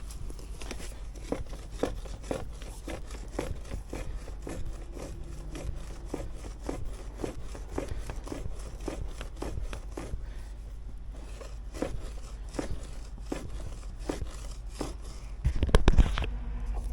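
Digging into dirt with a hand tool: short scraping strikes about two a second, with a louder burst of strikes near the end.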